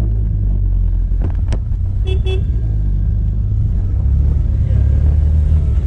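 Motorcycle riding in city traffic: a steady low engine and road rumble, with two quick toots of a vehicle horn just after two seconds in.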